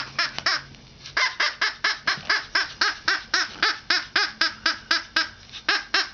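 Squeaky dog toy being squeezed rapidly, giving a quick, even run of short high squeaks, about four or five a second, with a brief pause near the start.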